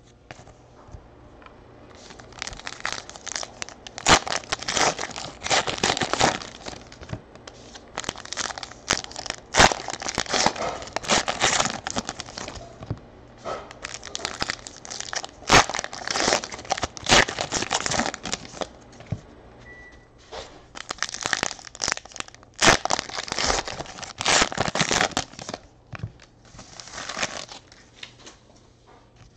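Foil wrappers of Panini Classics football card packs crinkling and tearing as the packs are opened by hand: several long runs of rustling with sharp snaps, broken by a few short pauses.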